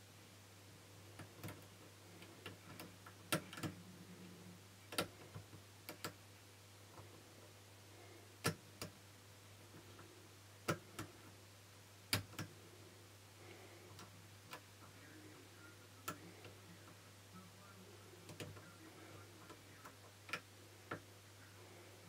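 Lock pick clicking and scraping against the pin tumblers of a brass Securit double euro cylinder lock held under a tension wrench: short, sharp, irregular clicks. A steady low hum runs underneath.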